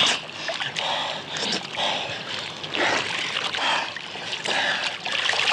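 River water splashing and sloshing irregularly around people moving in it.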